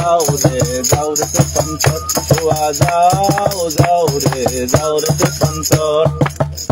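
Live Bengali folk music: a melody with bending notes over a low steady drone, driven by a quick steady beat of hand percussion with jingling, tambourine-like percussion.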